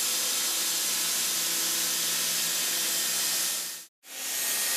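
A ball end mill roughing prehardened steel at 5,000 rpm in a CNC machining centre, with center-through oil mist coolant: a steady hiss with a faint low hum. The sound cuts out for a moment near the end, then comes back.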